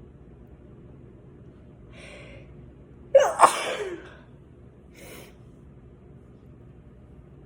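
A person sneezing: a short gasping intake about two seconds in, then one loud sneeze with a sharp double burst and a falling voiced tail a little past the middle, followed by a brief breath.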